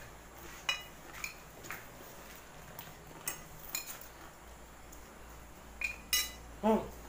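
Metal spoon clinking and scraping against a plate as someone eats, about seven light, separate clinks spread through. Near the end there is a short vocal sound falling in pitch, the loudest sound here.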